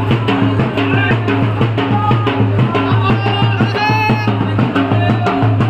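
Dance music with a fast, steady drum beat and a high melody that slides between notes about halfway through.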